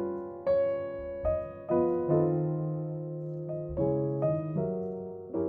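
Background piano music: a slow melody with notes and chords struck and left to die away.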